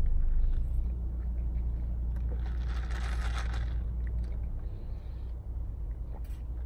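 A sip drawn through a plastic straw from an iced blended coffee drink, heard as a hissing slurp for about a second midway, over a steady low rumble in a car's cabin.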